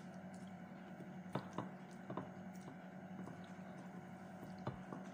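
Eating sounds from a person eating by hand: wet chewing and mouth noises with a few short sharp clicks, over a steady low hum.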